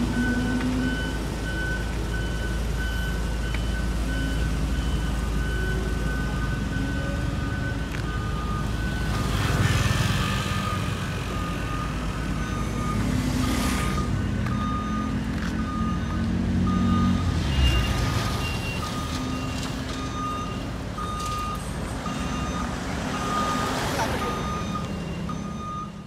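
Diesel road rollers running with a steady low rumble while a reversing alarm beeps over and over; about nine seconds in, the beeping continues at a lower pitch. A few louder swells of passing vehicles rise and fall over the engine noise.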